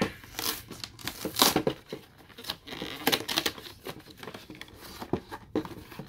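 Cardboard and plastic packaging of a boxed card set being torn open and handled: irregular crinkling and tearing, loudest about a second and a half in.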